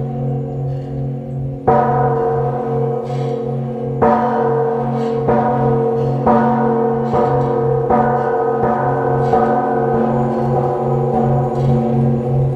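Vietnamese Buddhist temple bell struck again and again, each stroke landing on the ringing of the last, over a low pulsing hum. The strokes come closer together as it goes on, from about two seconds apart to well under a second.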